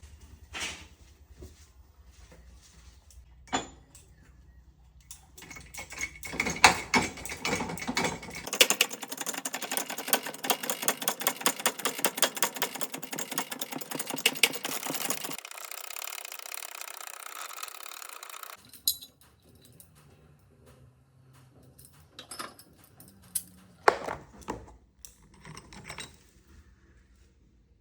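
Hand work on metal table fan parts: scattered clicks, then a run of rapid metallic clicking and scraping for about ten seconds, a steadier rasp for a few seconds, and scattered clicks again.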